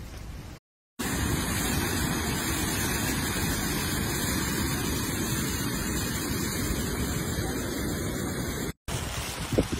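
Muddy river in flood rushing past in a torrent: a steady loud rush of churning water. Short breaks about a second in and near the end, followed by a shorter stretch of similar water noise with a few uneven bumps.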